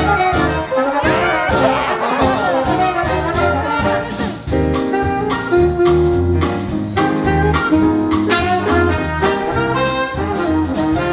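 A small live jazz band led by brass horns, backed by piano and drum kit, playing an upbeat number over a steady beat.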